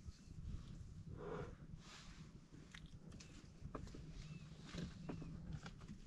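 Faint animal sounds: a short call about a second in, among scattered knocks and rustling over a low rumble.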